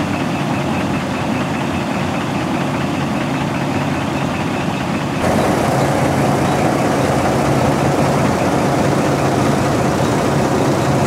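Volvo semi-truck's diesel engine idling steadily just after start-up, while its air system fills the airbags. About five seconds in, the sound becomes louder and brighter.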